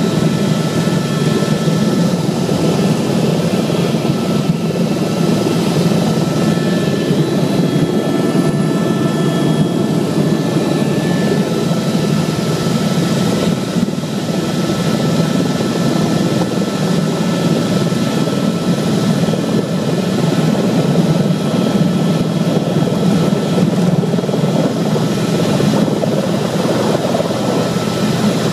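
Helicopter engine and rotor noise heard from inside the cabin: a steady, loud drone with faint, steady high whine tones above it.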